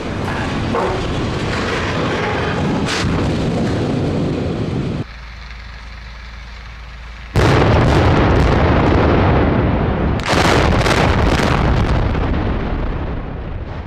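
A steel smokestack toppling, a long loud rumble of collapse that stops abruptly about five seconds in. After a quieter pause, explosive cutting charges on the steel columns of a power-plant boiler house go off with a sudden loud blast, a second surge of blasts follows a few seconds later, and the noise fades toward the end.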